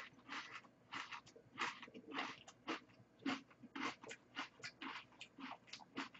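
Close-up chewing of a crisp ice cream cone: a quick run of faint crunches, about three or four a second.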